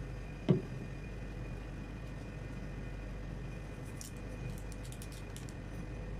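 Steady hum of a rolled ice cream machine's refrigeration unit, with one sharp knock about half a second in and a few faint high clicks around four to five seconds in.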